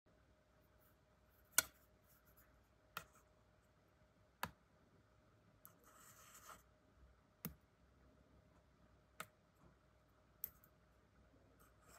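Near silence broken by six faint, sharp clicks spaced one to three seconds apart, with a short scratchy rustle about six seconds in, over a faint steady tone.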